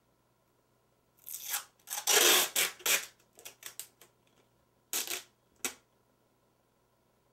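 Clear packing tape pulled off the roll: a loud ripping that runs for about two seconds, then a few crackles, then two short rips about five seconds in.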